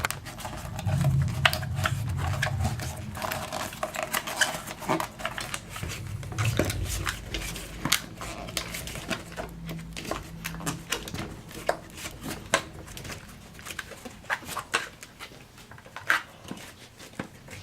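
A rubber tyre and inner tube being worked onto a pushchair wheel rim by hand: irregular rubbing, creaking and clicking. Low rumbling handling noise comes twice, early on and around the middle.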